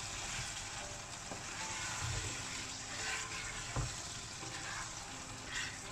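Wooden spatula stirring and scraping a thick tomato masala with potato and capsicum pieces in a non-stick wok, over a steady low sizzle of the frying sauce, with a few light knocks of the spatula against the pan.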